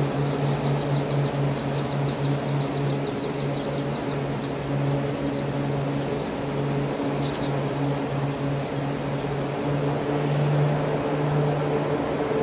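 Steady low mechanical hum with rushing air inside a moving aerial tramway cabin. A faint, rapid high ticking runs through the first few seconds.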